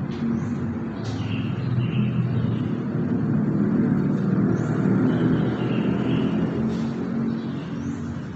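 Steady low rumble of motor-vehicle engines, like road traffic, with a few short high chirps over it.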